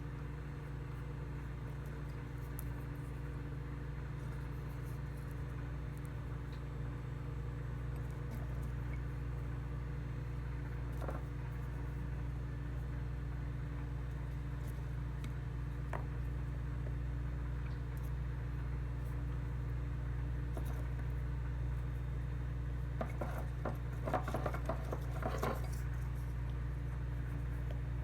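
Microwave oven running with a steady hum, with a few light clinks of dishes near the end.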